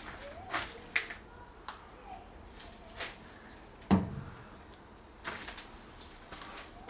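A few scattered knocks and clicks, the loudest a dull thump about four seconds in.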